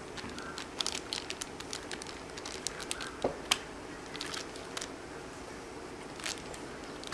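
Scattered small plastic clicks and taps as a RAM stick is handled and pushed into the motherboard's memory slot, with a couple of sharper clicks, one about halfway through and one at the end.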